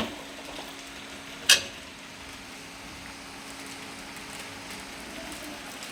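A single sharp click about one and a half seconds in, over a faint steady hum and hiss that stops about five seconds in.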